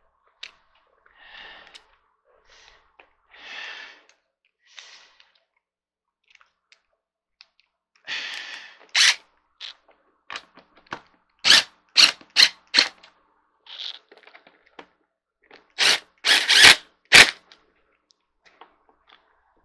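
Cordless power driver run in short trigger bursts, driving and tightening the screws that hold an office chair's armrest: a group of four quick bursts about 12 seconds in and another group of four around 16 to 17 seconds in. Quieter handling knocks and rustles of tools and parts come in between.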